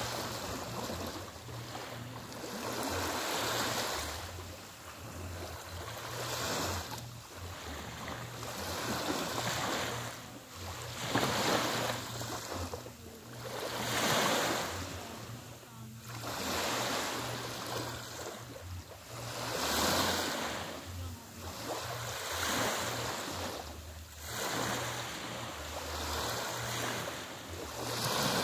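Small waves breaking gently and washing up a sandy, pebbly shore. A hissing wash swells and fades every two to three seconds.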